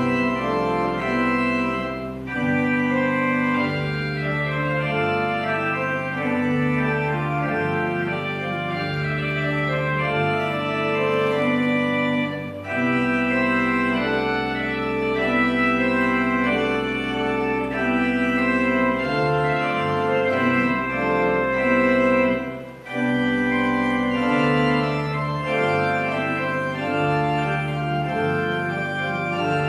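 Organ music: slow held chords over a changing bass line, with short breaks between phrases about two, twelve and twenty-three seconds in.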